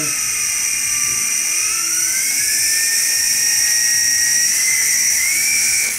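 WLtoys V955 micro RC helicopter's electric motors running on the ground for a tail check: a high, steady whine with a second tone that dips, then climbs as the throttle and sticks are moved. It cuts off near the end.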